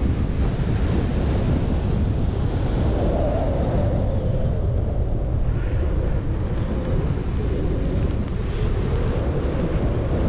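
Strong wind buffeting the microphone: a loud, steady, low rumble of wind noise.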